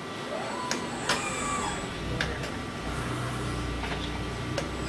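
Hydraulic CNC sheet-metal folding machine cycling: a drive whine that rises and falls in pitch, several sharp clicks, and a low hum that starts about halfway through.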